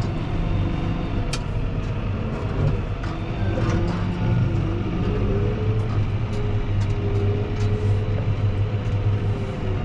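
Fendt 724 Vario tractor's six-cylinder diesel engine running steadily while it manoeuvres with a front snow plough. A whine rises and falls slowly with engine speed, and there are a few light clicks.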